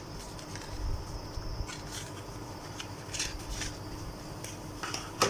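Light rustling and small taps of phone-box contents and packaging being handled, with a sharp click near the end.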